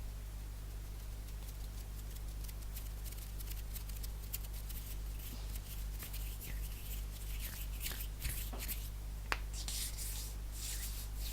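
Fast ASMR hand sounds: quick light finger taps and flicks in the first half, then brisk swishes of palms rubbing together in the second half, with one sharp click late on.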